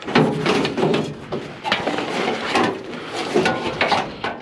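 A run of clanks and knocks from scrap items being handled on a loaded utility trailer.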